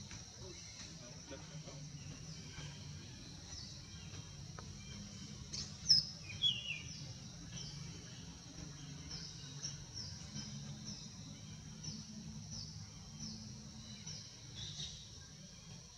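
Outdoor ambience: birds chirping in short, repeated falling notes over a steady high insect drone and a low rumble, with one louder, sharper bird call about six seconds in.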